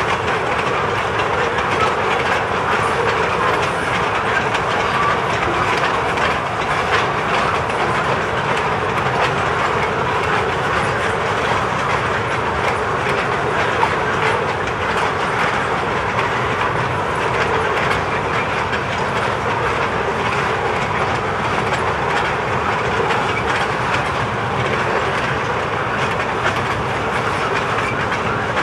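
Freight train's boxcars and tank cars rolling steadily past, steel wheels clicking over the rail joints.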